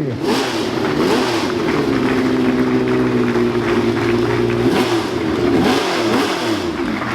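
Alfa Romeo 182 Formula 1 car's 3-litre V12 being revved. It rises and falls in pitch at first, holds steady revs for a couple of seconds in the middle, then drops and climbs again near the end.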